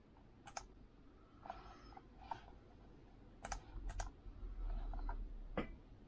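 Faint, scattered clicks and key taps of a laptop being operated, about eight in all at uneven intervals, with a low rumble about four to five seconds in.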